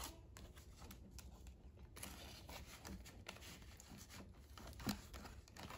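Faint rustling of paper bills and a clear plastic cash envelope being handled, with a few small clicks and a sharper tap about five seconds in.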